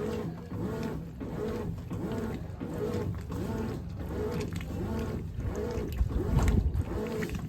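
Brastemp 17 kg top-load washing machine agitating a tightly packed load, its water and clothes swishing back and forth in a regular rhythm of about three strokes every two seconds. There is a heavier low surge about six seconds in.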